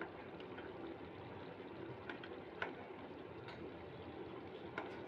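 Food cooking in a pan: a faint steady hiss, with a sharp click about two and a half seconds in and another near the end.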